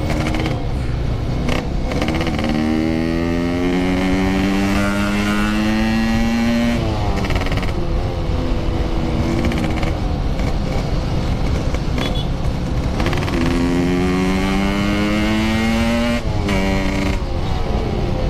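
Yamaha RX-King two-stroke motorcycle engine heard from on board while accelerating through the gears. Its pitch climbs, drops at a gear change about seven seconds in, climbs again from about thirteen seconds and shifts again near the end, over a steady rumble of wind and road.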